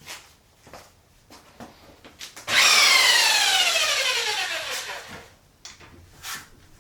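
A few light clicks and taps, then about two and a half seconds in a small electric power tool's motor comes in loud at full speed and winds down, its whine falling steadily in pitch for about two and a half seconds before a few more clicks.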